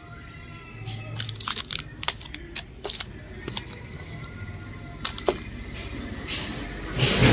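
Plastic chocolate-bar wrappers crinkling and clicking in short sharp crackles as the bars are handled, over faint background music. A loud rushing noise starts near the end.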